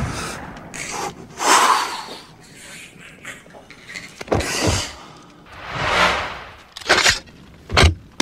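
Film sound effects: two whooshing sweeps that swell and fade, and a few sharp knocks and clicks, the last two close together near the end.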